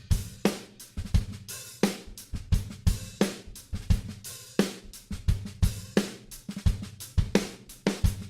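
Background music: a drum kit playing a steady beat on its own, with kick drum, snare and hi-hat.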